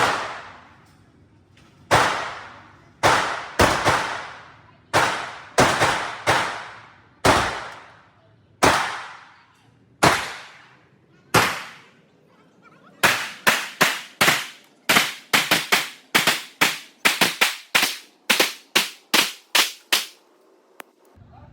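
Handgun shots at an indoor range, each with a short echo off the walls. About a dozen shots come a second or so apart, then about halfway through a fast string of some twenty shots follows at roughly three a second.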